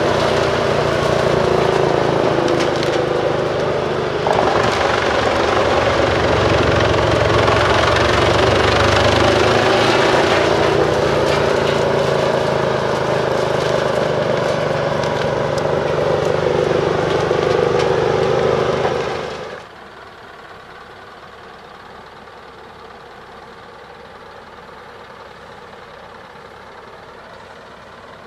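Truck-mounted Bruks 1006 ST wood chipper running loud under its separate 720 hp engine, chipping forest slash. About nineteen seconds in, the noise cuts off suddenly to a much quieter steady engine idle.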